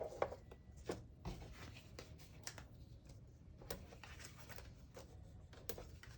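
Faint, scattered light taps and soft rustles of paper decoupage pieces being handled and pressed into place on a card.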